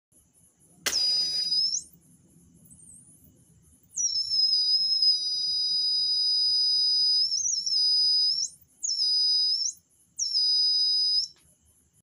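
Buzzer of a homemade IR flame-sensor alarm giving a shrill, high, steady tone in four spells: a short one, a long one of several seconds, then two short ones. It sounds while a lit match is held near the sensor, so the circuit is detecting the flame.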